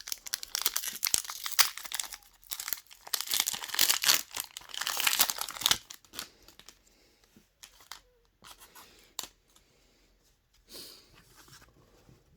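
A Pokémon booster pack's foil wrapper being torn open and crinkled for about six seconds, then quieter rustling with a few light clicks as the cards are handled.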